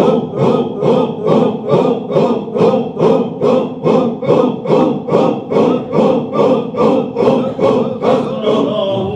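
A group of men chant dhikr in unison, a short forceful word repeated about two and a half times a second in a steady rhythm. Shortly before the end the rhythm stops and a single held, sung voice begins.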